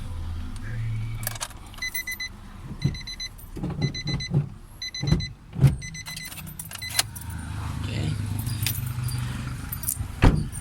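A car's electronic warning chime beeping in quick runs of short high beeps, mixed with sharp clicks and knocks of parts being handled; the loudest knock comes near the end. A low steady hum runs under it at the start and again in the last few seconds.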